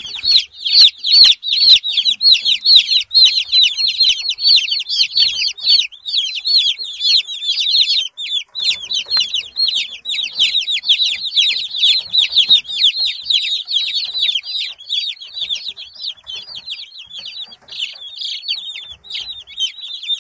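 A flock of newly arrived Cobb 500 broiler chicks peeping nonstop, many short, high, downward-sliding peeps overlapping.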